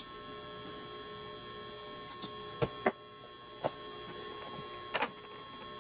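A few soft clicks and taps from handling a plastic glue bottle and a paintbrush on a cardboard-covered table, over a steady electrical hum.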